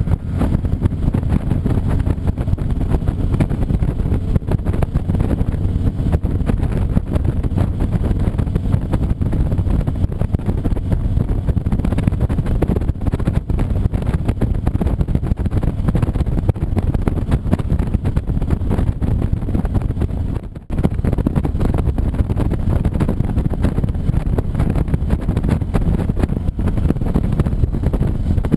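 Motorcycle engine and exhaust running steadily while riding, with wind buffeting the microphone. The sound drops out for a moment about twenty seconds in.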